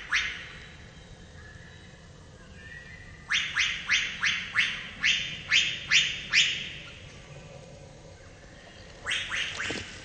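A wood thrush's sharp alarm notes, repeated in a quick series of about eight a few seconds in and a shorter run of four near the end: the bird scolding the barred owl.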